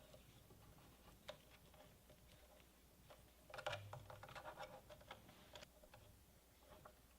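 Near silence with faint clicks and taps of small parts being handled, a cluster of them in the middle.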